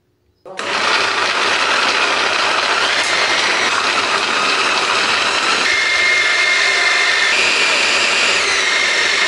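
Electric food chopper's motor grinding chunks of galangal, lemongrass and candlenuts into a coarse paste, switching on about half a second in and running steadily. Its whine steps up and down in pitch a few times as it runs.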